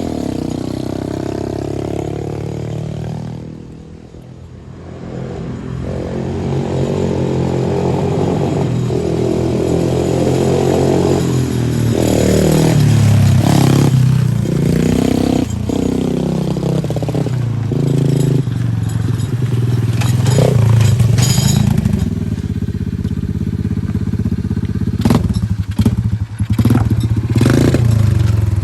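110cc four-wheeler's small engine running and being revved up and down again and again, its pitch rising and falling; it sounds healthy after its repair. The sound dips briefly about four seconds in, and a few sharp clicks come near the end.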